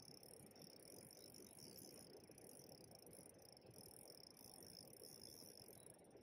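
Faint, steady high-pitched chirring of insects over a low, even rush of flowing river water.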